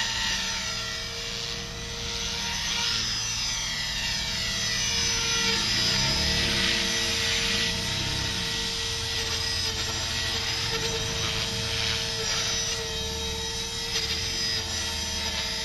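Align T-Rex 450 Pro electric RC helicopter in flight: the steady whine of its motor and drive over the thrum of the spinning rotor blades. For several seconds the higher whine slides up and down in pitch as the helicopter moves about.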